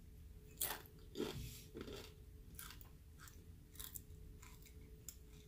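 A person biting into and chewing a crisp Paqui One Chip Challenge tortilla chip: a string of crunches, the loudest in the first two seconds, then fainter ones as the chewing goes on.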